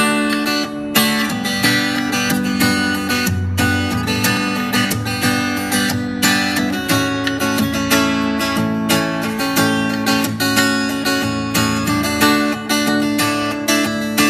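Acoustic guitar strummed in a steady rhythm through changing chords: the instrumental intro of a song before the vocals come in.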